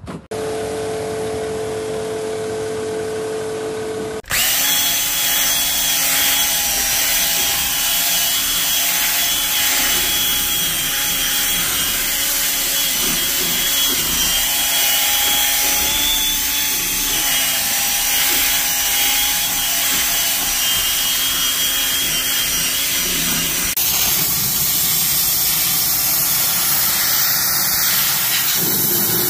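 Power drill with a rotary scrubbing brush running steadily as it scrubs a car's floor carpet, after a few seconds of a steady hum. About twenty-four seconds in it gives way to the hiss of a steam cleaner blowing steam through a dashboard air vent.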